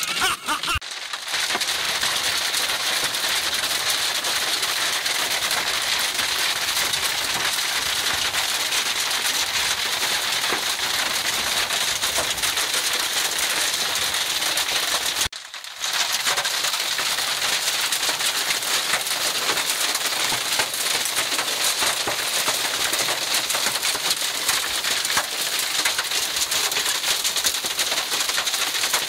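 Heavy hail falling: a dense, steady clatter of many small hailstones striking the ground, breaking off briefly twice.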